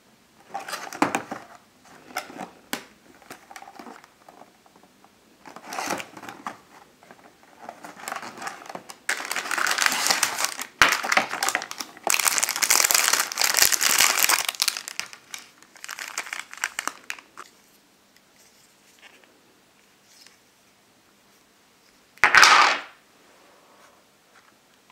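Plastic packaging crinkling and rustling as a candy-kit box is unpacked and its plastic bag of foil sachets and plastic molds is handled, in irregular bursts that are densest and loudest through the middle stretch. Near the end there is one short, loud crinkle.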